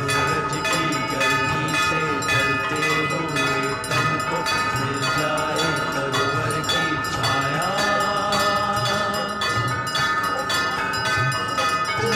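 Bells ringing in quick repeated strokes, their tones ringing on, over devotional bhajan music.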